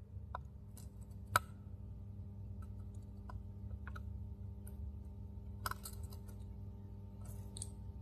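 Faint scattered clicks and light crackles from a soldering iron tip and a stranded wire working the solder on a circuit board's pads, as solder is wicked out of a clogged through-hole; the sharpest click comes about a second and a half in. A low steady hum runs underneath.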